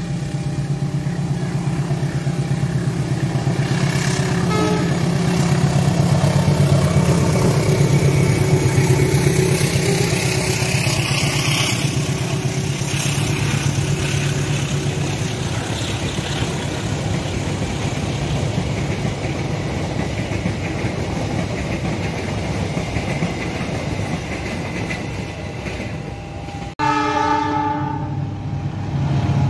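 A diesel-hauled passenger train passing at speed, its locomotive running and the coaches' wheels clattering over the rails. Near the end, after a sudden break, an approaching KAI CC206 diesel-electric locomotive sounds its horn, a chord of several notes held for about a second and a half.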